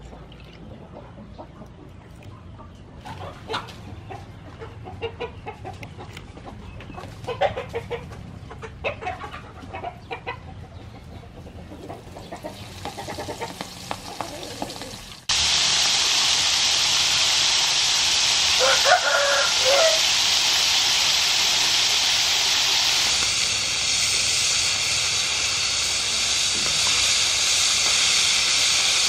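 Chickens clucking at intervals over a quiet background. About halfway through, a sudden switch to loud, steady sizzling of squid pieces deep-frying in hot oil, with one short chicken call over it a few seconds after the sizzling starts.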